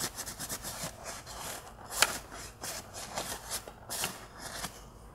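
Paper towel rubbing and rustling as it wipes a metal mounting plate dry behind the dashboard trim, in uneven strokes with a sharper scrape about two seconds in.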